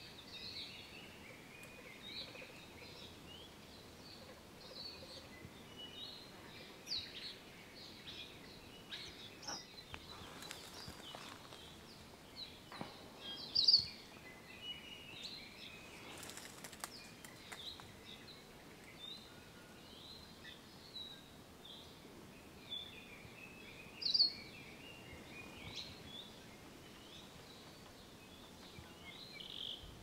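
Chorus of endemic Hawaiian forest birds: many short, high chirps and song phrases overlapping, with two louder, sharper calls, one about halfway through and one later on.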